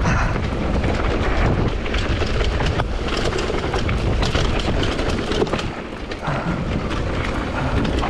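Downhill mountain bike (Commencal Supreme DH) riding fast down a rough dirt trail: steady rush of wind and knobby tyres, with frequent quick rattles and clacks from the bike over bumps.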